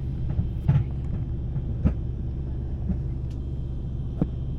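Steady low drone of a small propeller airliner, heard around its cabin, with a few light knocks and clicks about a second in, near two seconds and near the end.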